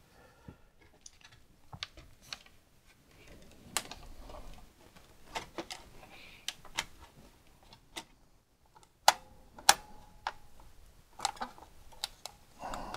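Scattered, irregular plastic clicks and taps from the opened-up Convergent Workslate's case and circuit board as it is handled and turned over. The two sharpest clicks come close together a little past the middle.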